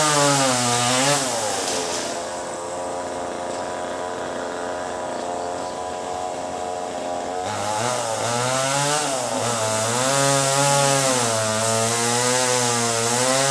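Chainsaw engine revving high with its pitch wavering as it cuts wood. About two seconds in it eases to a steadier, quieter running for several seconds, then revs back up and cuts again a little before the end.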